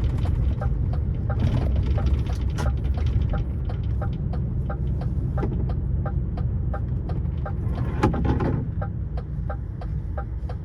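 Lorry's turn-signal indicator ticking steadily at about three clicks a second inside the cab, over the low rumble of the engine and road. A brief louder noise cuts across it about eight seconds in.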